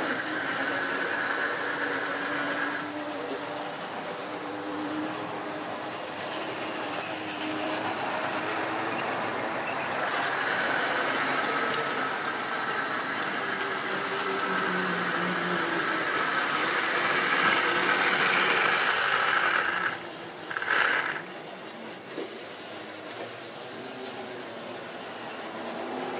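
Model railway train hauling a long rake of goods vans, running steadily along the track. It grows louder as the vans pass close by, then drops off suddenly about twenty seconds in, with one brief burst just after.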